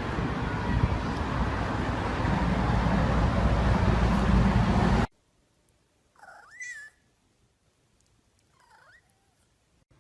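A steady noisy rustle for about five seconds that cuts off suddenly, then a cat meows once, its pitch rising then falling, and a fainter second meow follows near the end.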